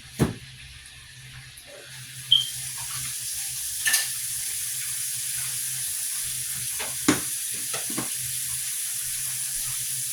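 Chicken frying in hot oil, a steady sizzle that swells about two seconds in and then holds level, with a few sharp clinks of a utensil.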